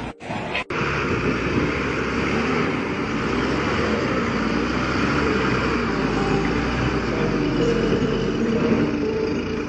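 Heavy diesel engine running steadily with a dense, noisy sound, cut off by two brief dropouts in the first second.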